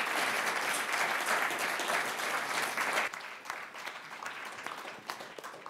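Audience applauding, full for about three seconds and then dying down to a thinner patter of claps.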